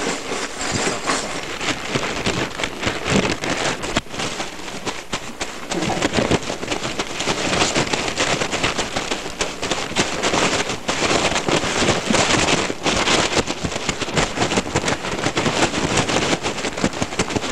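Fire burning a pile of toy cars, crackling densely and steadily with many small pops.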